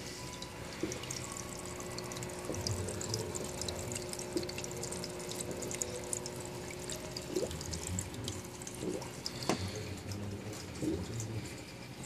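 Aquarium water bubbling and trickling, with many small fine crackles, over a faint steady hum from the tank equipment.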